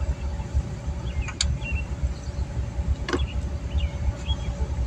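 A low, uneven rumble runs throughout. Two sharp metallic clicks, about a second and a half in and again near three seconds, come from hand tools working in the engine bay.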